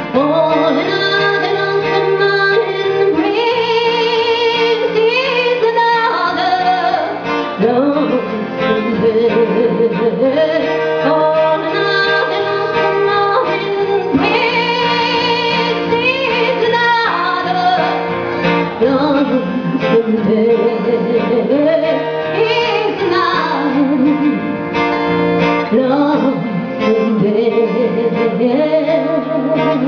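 A woman singing a country song into a microphone while accompanying herself on acoustic guitar.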